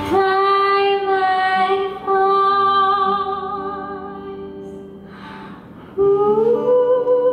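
Female vocalist singing live with band accompaniment: she holds one long note with a slight vibrato that fades out after about five seconds, then starts a new note that slides upward, over soft sustained bass and guitar chords.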